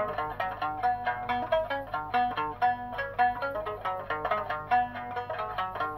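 Okinawan sanshin, the three-stringed snakeskin-bodied lute, played solo at a quick tempo: a steady stream of plucked single notes, several a second, with no singing.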